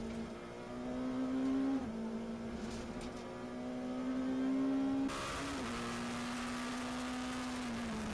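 Rally car engine heard from inside the cabin, accelerating hard: its pitch climbs, drops at an upshift into fourth gear about two seconds in, then climbs again. About five seconds in the sound cuts to another in-car recording of the engine running at a steadier pitch that dips near the end.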